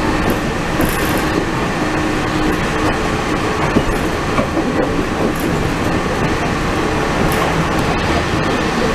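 Walt Disney World monorail train running along its beam: a steady rumble with a low hum.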